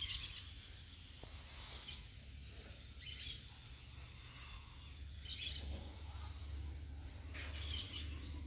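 Bird chirps: about five short, high calls spaced a second or two apart, over a steady low rumble.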